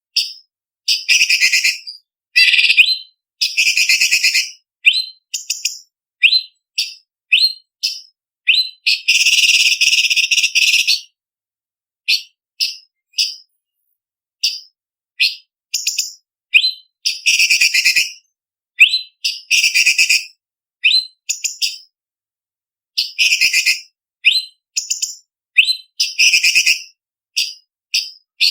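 Orange-bellied leafbird (cucak cungkok) singing: rapid bursts of short, high whistled notes and chirps. Around a third of the way in there is a longer, harsher chattering run of about two seconds, and brief pauses break the song twice.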